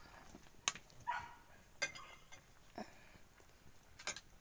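A metal ladle clinking sharply three times against a metal cooking pot, with a couple of faint short calls in between.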